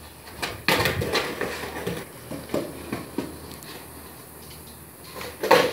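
Skateboard clattering on a concrete path as tricks are tried: a loud clack about a second in, a few lighter clacks in the middle, and the loudest smack of the board hitting the concrete near the end.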